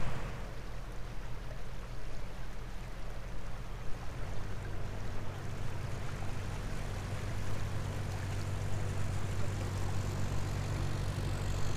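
Narrowboat's diesel engine running steadily while cruising, a low even hum, with water rushing along the hull.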